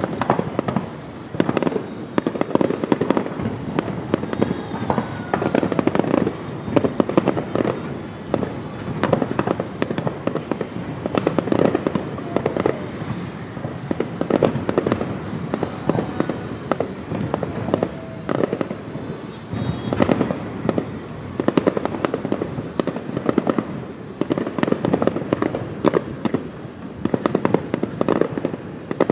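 Fireworks going off: a dense run of overlapping bangs and crackles that swell and ease in waves every few seconds.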